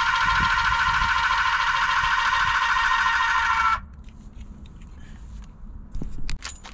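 A 12 V electric scissor car jack's motor running with a steady high whine, then cutting off suddenly a little under four seconds in. A few faint clicks follow near the end.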